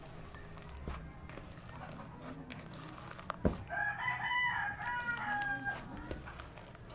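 A rooster crows once, a single call of about two seconds starting about halfway through, just after a sharp click. Under it, faint crackling and squishing as slime is kneaded by hand through foam beads.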